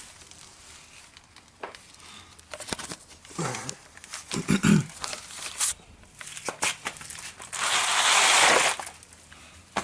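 Scattered clicks and knocks of tools and parts being handled under a car after the sump drain plug is refitted. Near the end comes a loud scraping rustle lasting about a second.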